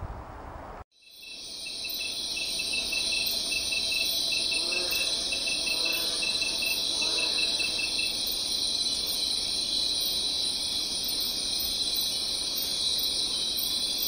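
Insect chorus: steady high-pitched buzzing trills at two pitches, with a rapid, evenly pulsed chirping for the first several seconds. It starts abruptly about a second in.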